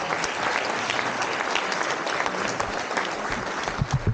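Audience applauding steadily in an auditorium: a dense patter of many hands clapping, with a few low thumps close to the microphone near the end.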